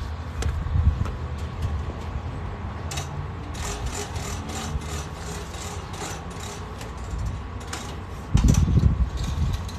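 Tools and gear being packed away: a run of light clicks and knocks over a steady low hum, with a heavy low thud and rumble about eight and a half seconds in.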